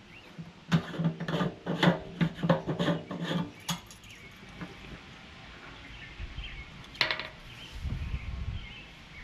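A quick run of sharp plastic clicks and rattles as the fuel cap of a portable generator is twisted off. Near the end comes one more click and a low rumble as a gas can is handled at the tank.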